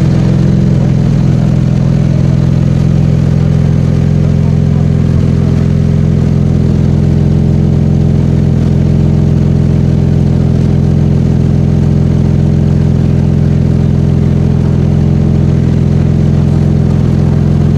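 Porsche 718 Cayman GT4 RS's 4.0-litre naturally aspirated flat-six idling steadily through its loud upgraded Manthey Racing exhaust, with no revs.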